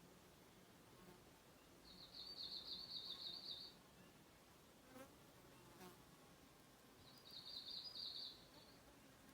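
Japanese bush warbler calling faintly: two rapid, rattling trills, each under two seconds long, the first about two seconds in and the second near the end.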